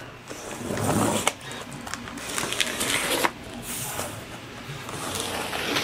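Small pocket knife slitting packing tape on a large cardboard box, with the cardboard handled: irregular scraping and rustling swishes broken by light clicks and knocks.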